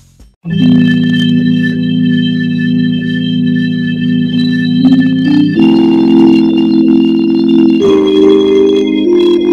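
Background music of held organ chords that start abruptly about half a second in and change every couple of seconds.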